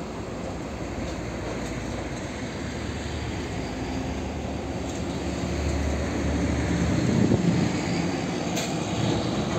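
Heavy diesel trucks moving off from a toll gate: a steady engine drone with tyre noise. It swells about seven seconds in as a log-laden Hino truck draws near.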